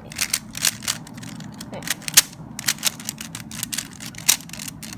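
Plastic Rubik's cube being turned by hand, its layers clacking in quick, irregular clicks, several a second, with one sharper click about two seconds in.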